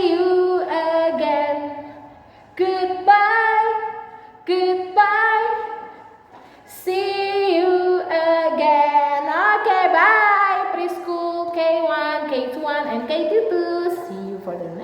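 A woman singing a children's goodbye song in sung phrases with short breaks between them, her voice alone and unaccompanied.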